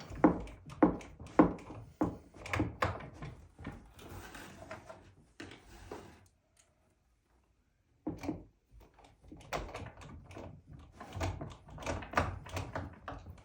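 Phillips screws being driven by hand into the chair's frame: a string of irregular clicks and knocks from the screwdriver and the chair parts, with a sudden dead-silent break in the middle.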